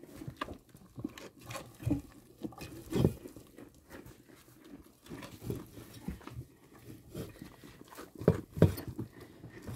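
A goat eating food scraps from an enamel bowl in hay: irregular chewing, slurping and rustling sounds, with a few louder knocks about three seconds in and near the end.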